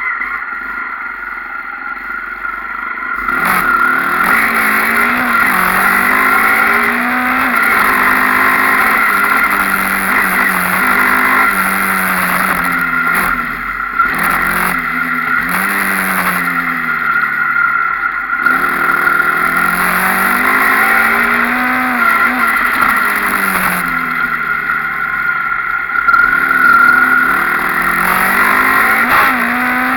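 Dirt bike engine revving hard and shifting, its pitch climbing and dropping again and again. It gets louder about three seconds in.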